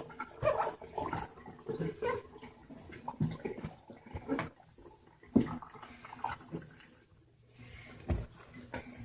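Water sloshing and swishing irregularly in the wash tub of a portable mini twin tub washing machine during a rinse, with a couple of sharper knocks.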